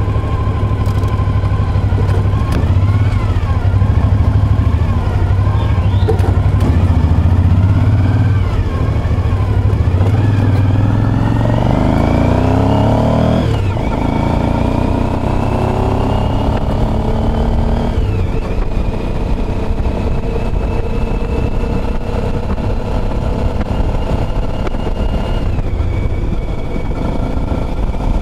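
Motorcycle engine on the road, pulling harder: its pitch climbs and drops sharply twice about halfway through as it shifts up through the gears, then holds steady at cruising speed.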